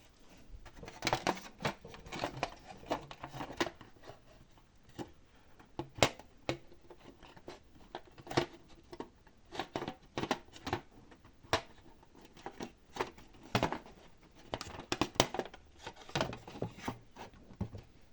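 Hard disk drive being handled and fitted into a DVR's metal case: irregular clicks, taps and light scrapes as it is placed and seated, with a sharper knock about six seconds in.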